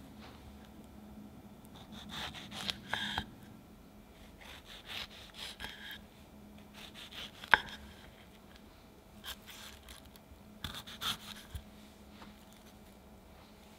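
Knife cutting fresh strawberries on a wooden cutting board, hulling off the leafy tops and slicing the berries into rounds, in several short bursts of soft, crisp cuts. One sharp tap of the blade on the board comes about halfway through.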